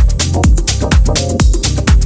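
Deep tech house track: a steady four-on-the-floor kick drum about twice a second over a deep sustained bass line, with hi-hat ticks between the kicks.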